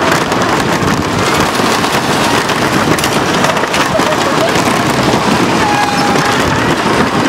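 Wooden roller coaster train running at speed along its track: a loud, steady rumble and rattle of the wheels on the wooden track, full of small knocks.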